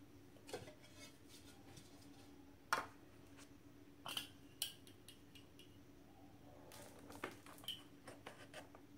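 A handful of light clicks and clinks from a glass plate and metal binder clips being handled and set down on a board, the sharpest nearly three seconds in.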